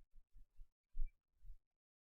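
A few faint, short low thuds, about four in a second and a half, then silence.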